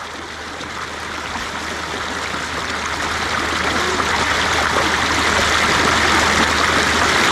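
Shallow rocky mountain stream running, a steady rush of water that grows gradually louder.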